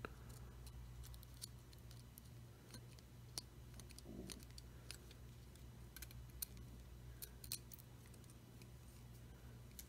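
Near silence with faint, scattered small clicks and ticks of fingers handling a smartphone's opened frame and motherboard while seating the charging-port flex cable connector, over a low steady hum.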